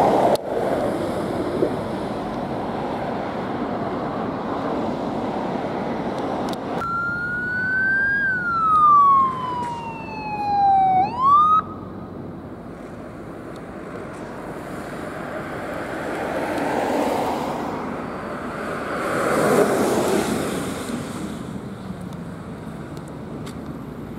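Emergency vehicles driving past, engine and tyre noise swelling and fading. About seven seconds in, an electronic siren sounds one long wail that falls slowly, then sweeps sharply back up and cuts off; this siren is the loudest sound.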